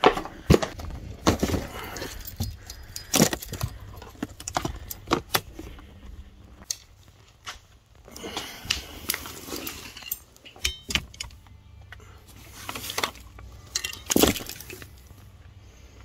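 Gear being handled: an irregular string of knocks, clicks and light metallic jangling as things are picked up and moved, with louder clatters about half a second in, around three seconds and near fourteen seconds.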